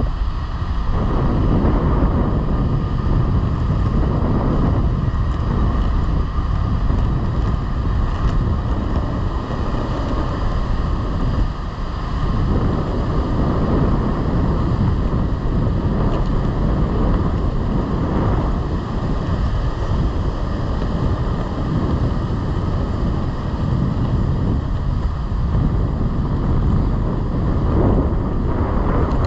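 Wind buffeting the microphone while cruising on a longboard: a steady low rushing rumble with small swells in level.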